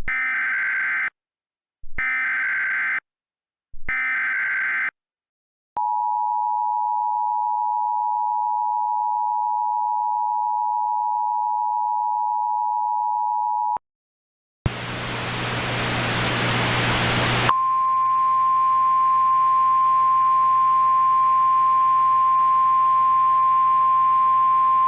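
Emergency Alert System activation tones: three short warbling SAME data bursts, then the eight-second two-tone attention signal, then about three seconds of radio hiss, then a steady single-pitch NOAA Weather Radio alert tone over a lighter hiss.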